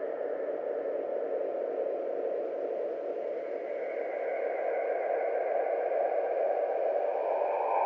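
Electronic music intro: a hissy synthesizer swell that grows steadily louder, with a higher tone coming in over the last few seconds.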